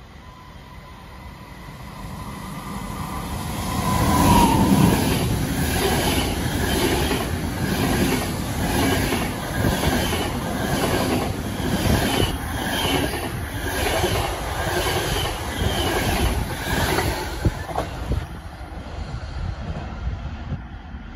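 SBB locomotive-hauled passenger train running past along the platform. It approaches with a steady whine that drops in pitch as the locomotive passes about four seconds in. The coaches' wheels then clatter over the rail joints in a steady rhythm, and the sound fades away near the end.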